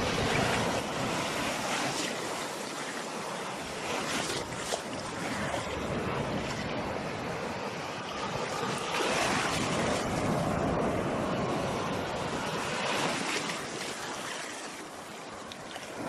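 Sea surf washing onto a shore in a steady hiss, swelling louder and easing off every few seconds as the waves come in.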